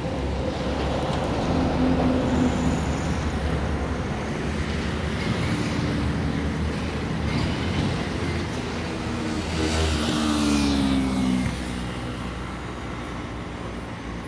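Road traffic passing close by, with one vehicle going past about ten seconds in, its engine tone dropping in pitch as it passes.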